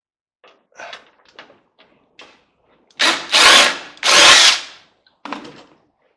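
Power drill run in two short bursts, with a shorter third, backing out the screws that hold a microwave's bottom panel, after a few light clicks of handling.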